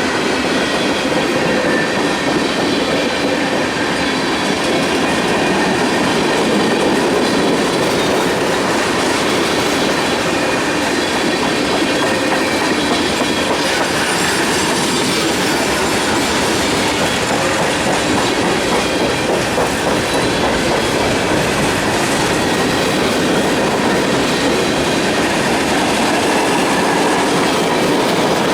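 Freight cars of a long CSX mixed manifest train rolling past at steady speed: wheels clattering over the rail joints, with faint wheel squeal.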